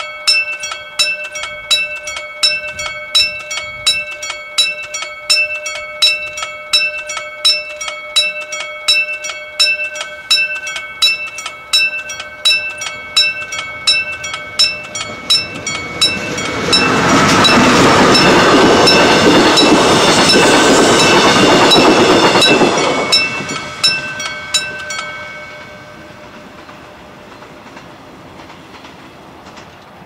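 Railroad crossing warning bell dinging steadily, about two strikes a second. A few seconds past the middle a train passes over the crossing, a loud rumble and rattle lasting about six seconds. The bell stops a couple of seconds after the train has gone.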